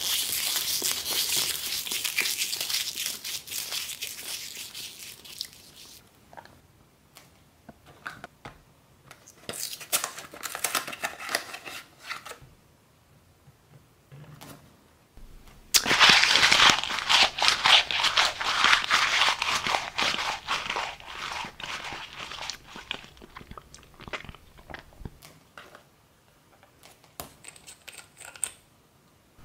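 Packaging crinkled and torn: a crackling stretch at the start, scattered clicks and short rustles in the middle, and a loud burst of crinkling and tearing about sixteen seconds in that fades out over several seconds.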